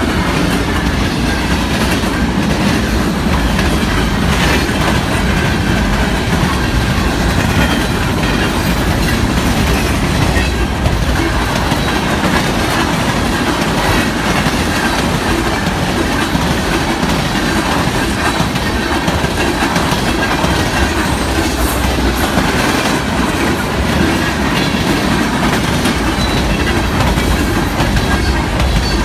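Freight cars of a Norfolk Southern westbound manifest train rolling past at steady speed, a continuous rumble with wheels clattering over the rails and faint wheel squeal.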